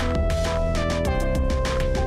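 Background music: held notes that shift pitch about a second in, over a fast, steady beat.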